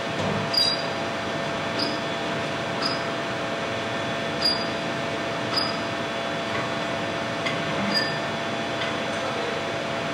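Steady hum of a 1000-tonne hydraulic press and its machinery, with sharp clicks about every one to two seconds.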